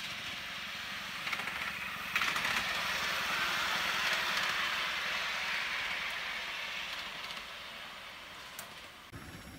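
5-inch gauge live-steam locomotive, a model of a Highland Railway Loch Class, running past with its steam hissing. The hiss swells sharply about two seconds in as the engine comes close, then fades as it draws away.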